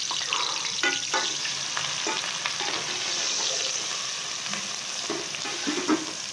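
Sliced onions sizzling in hot oil in an aluminium pot as they are fried toward light brown, stirred with a steel ladle that scrapes and clinks against the pot now and then.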